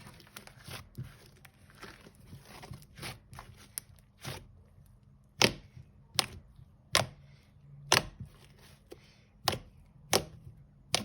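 Blue slime being pressed and worked by hand: crackling and small popping clicks at first, then about seven loud, sharp pops under a second apart from about halfway in.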